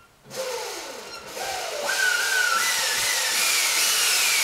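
Brushed DC electric motorcycle motor (Motenergy ME-1003) spinning up unloaded with the chain off, driven by an Alltrax controller. A whine rises in steps as the throttle is opened, over a rushing hiss, then starts to fall near the end as the throttle is eased off.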